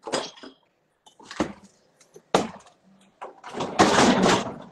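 Handling noise on a phone microphone: a few sharp knocks and bumps, then a louder burst of rustling about a second long near the end.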